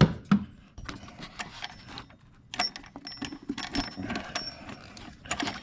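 Ratchet wrench clicking in quick, irregular runs as it spins out a pulley bolt on the engine, with small metal clinks of tool and bolt.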